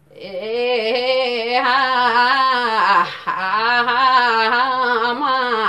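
A woman singing a Yakthung Limbu palam without accompaniment: two long, wavering, drawn-out phrases, with a short break for breath about three seconds in.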